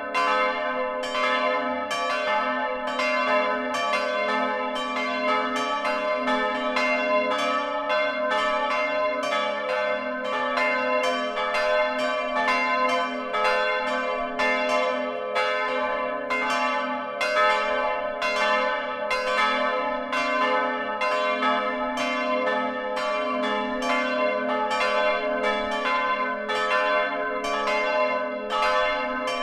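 Several swinging church bells ringing together in a peal, recorded close up inside the belfry. Their clapper strikes overlap at roughly one to two a second, over a dense, lasting hum of tones.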